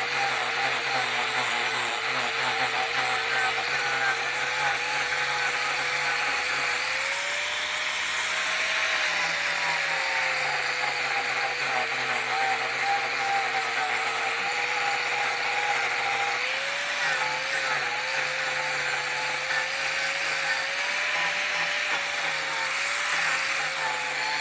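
Angle grinder fitted with a King Arthur's shaping disc carving the outside of a wooden root bowl: steady grinding, the motor's pitch rising and dipping as the disc bites into the wood.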